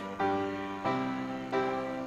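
Piano accompaniment to a congregational hymn, playing three chords in the gap between sung lines, each struck and then fading.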